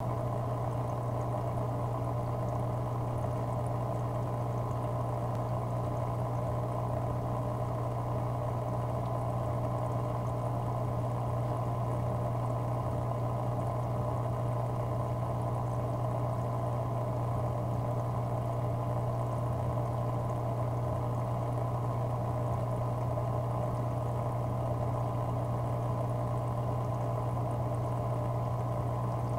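Aquarium pump running: a steady low hum with the sound of moving water over it.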